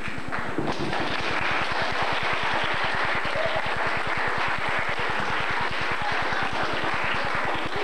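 Audience applauding with steady, even clapping after a song.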